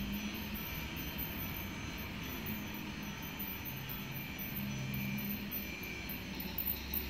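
Small battery-powered toy train running on its plastic track: a steady whir with faint tones that come and go.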